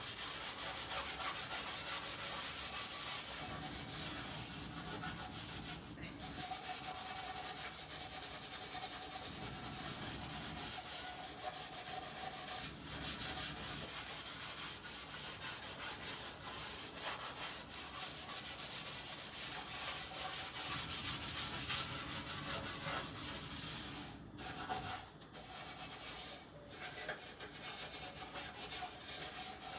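Steady, rapid scrubbing of a kitchen stove with Ajax scouring powder, a harsh rubbing scratch with a few brief pauses that grow more frequent near the end.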